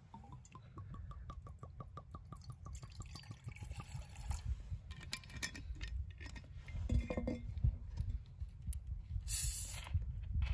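A drink being poured from a bottle, glugging in a quick even run of gurgles that rise slightly in pitch as the cup fills, followed by scattered clinks. A short hiss comes near the end.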